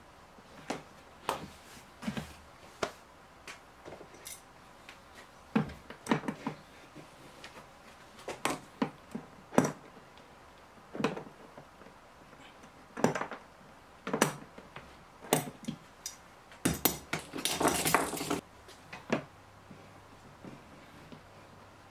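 Irregular clicks, taps and knocks of hands handling a hard plastic polyethylene water tank and a small metal fitting, with a busier rattle near the end.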